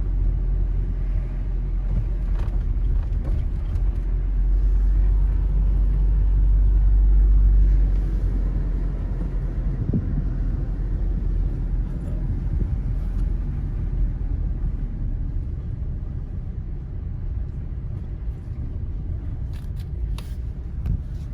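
Van driving on the road, a steady low rumble of engine and tyres heard from inside the cab. The rumble is heavier for the first eight seconds or so, then eases a little.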